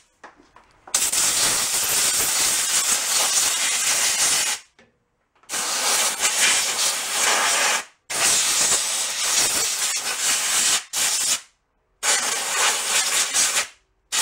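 Compressed-air blow gun blasting dirt and debris off the lawn tractor's engine around the carburetor: five bursts of hissing air, three of them a few seconds long and two short ones, with brief pauses between.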